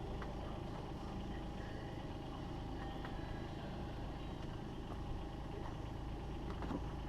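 Takeuchi TB216 mini excavator's diesel engine running steadily, with a few light clicks.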